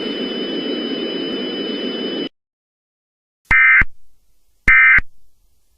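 A steady static hiss with a faint high whine cuts off sharply about two seconds in. After a short silence come two brief, identical digital data bursts about a second apart: the start of the Emergency Alert System end-of-message (EOM) signal.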